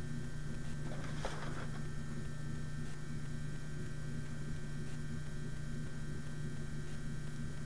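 Steady electrical hum with a faint high whine, and a brief rustle about a second in from plastic toy pieces being handled.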